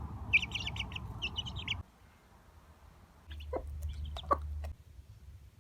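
Chickens clucking in quick runs of short calls over a low background rumble; the sound cuts off abruptly about two seconds in, and after a short lull a few more scattered calls come.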